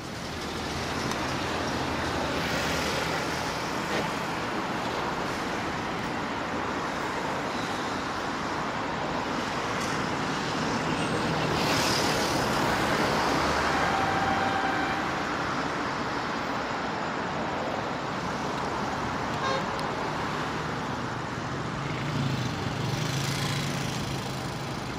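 Steady road traffic noise, with a horn sounding one steady note for about two seconds around the middle.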